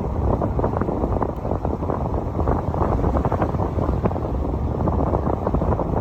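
Wind buffeting the microphone: a loud, steady rumbling flutter with no letup.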